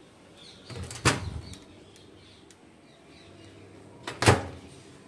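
Samsung microwave oven door being opened and shut: two sharp latch clicks with a dull thud, about a second in and about three seconds later, the second one louder.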